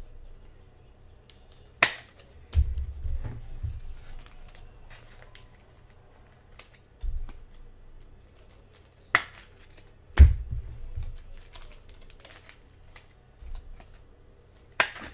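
Trading card packs and cards being handled on a table: soft rustling and wrapper crinkling, with several sharp clicks and a few low thumps.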